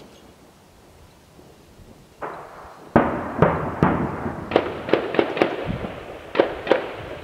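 Heavy weapons fire during shelling: a dull thud about two seconds in, then a quick, irregular string of about ten sharp, echoing reports.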